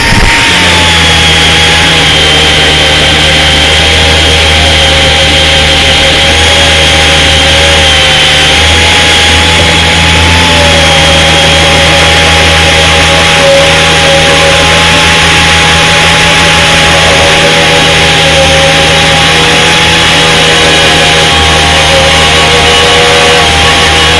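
Grinder running steadily with a high whine, grinding the old paint off a metal sign.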